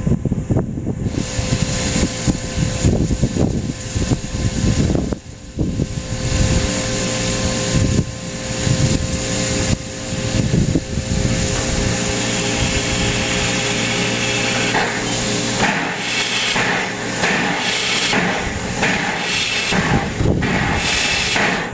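Small steam tank locomotive moving slowly over yard tracks, with a run of rhythmic chuffs and mechanical clanking. The sound changes abruptly twice, about five seconds in and a little past the middle.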